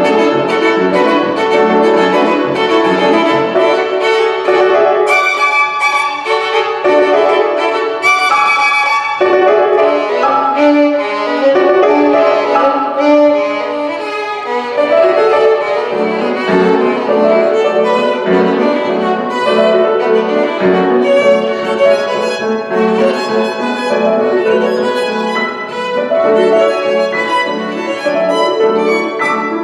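Violin and grand piano playing a duet, with a busy stream of quick violin notes over the piano.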